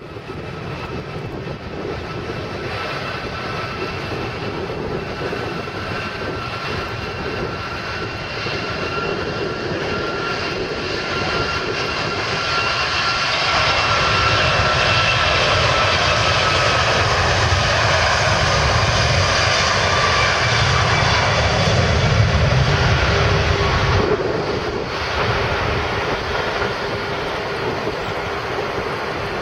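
Airbus A340-600's four Rolls-Royce Trent turbofans at take-off power, a steady jet roar with a high whine that slowly falls in pitch. It grows louder about halfway through, then eases a little near the end.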